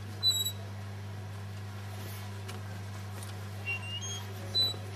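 A steady low electronic hum with a few short, high-pitched chirps over it: a loud one just after the start, a rising one about four seconds in, and another near the end.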